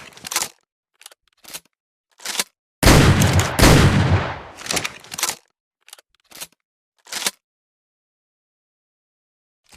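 Double-barrel shotgun: a few sharp clicks of the gun being handled, then two loud shots fired in quick succession, under a second apart, each ringing out. More clicks follow, then silence.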